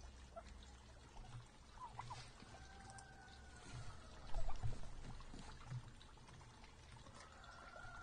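Wild turkeys pecking seed from a wooden feeder tray and a blacktail fawn eating from a metal pan: scattered small pecks and clicks, with a cluster of heavier knocks about halfway through. A faint drawn-out whistling tone sounds near the start and again near the end.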